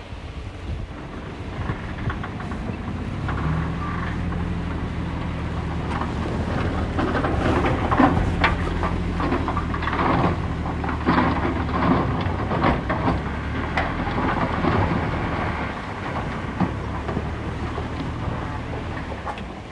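Heavy diesel engine of earthmoving machinery running steadily, with repeated metallic clanks and rattles over its middle stretch.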